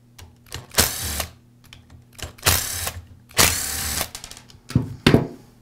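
Hand Torx screwdriver backing screws out of a cordless drill's plastic rear cap: about four short bursts of scraping and clicking with pauses between.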